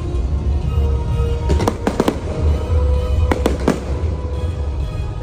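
Fireworks going off: a series of sharp bangs, bunched in the middle, over a constant deep rumble. Music plays alongside.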